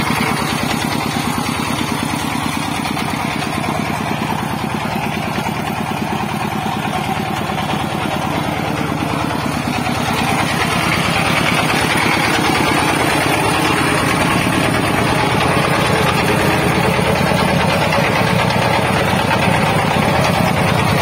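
Changfa 1115 single-cylinder diesel engine of a heavily loaded motor van running on the road, a steady rapid firing beat that gets louder about ten seconds in.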